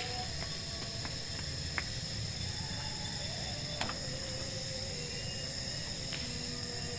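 Steady forest ambience: an even, high-pitched insect drone over a low rumble, with two short sharp clicks about two and four seconds in.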